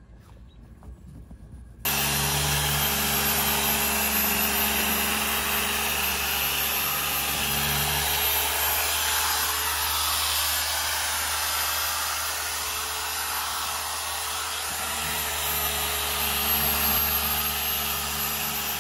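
Handheld electric orbital polisher used as a wet sander, running steadily against the boat's gelcoat hull with a motor hum and a rubbing hiss. It starts abruptly about two seconds in.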